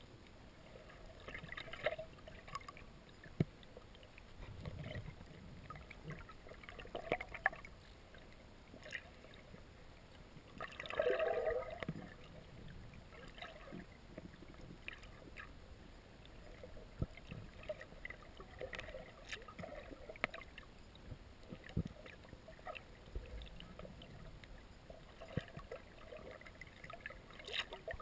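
Muffled underwater sound picked up by a camera below the surface: faint water movement with scattered small clicks and knocks, and a louder rush lasting about a second around eleven seconds in.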